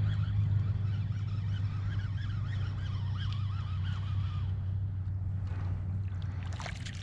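A kayak pedal drive whirring as it is pedalled, its whine rising and falling with each stroke over a steady low hum. The whine stops about four and a half seconds in, and a hooked fish splashes briefly at the surface near the end.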